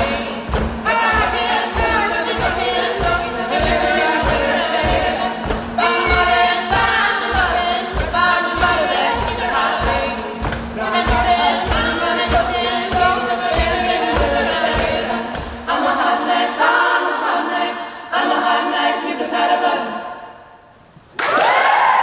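Mixed-voice a cappella group singing in close harmony over a steady low beat of about two strokes a second. About three-quarters through, the beat drops out and the voices carry on alone, then fade. Applause breaks out suddenly just before the end.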